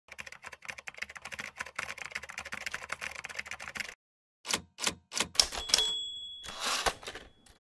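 Typewriter sound effect: rapid key clacking for about four seconds, then after a short pause a few single keystrokes, a bell ding and a short rasp.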